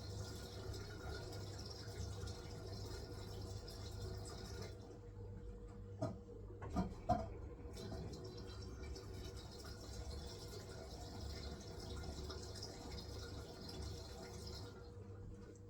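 Hisense washing machine on its wool cycle, water hissing into the drum as it fills over a steady low hum. The inflow stops about five seconds in, a few light knocks follow, and it starts again about three seconds later.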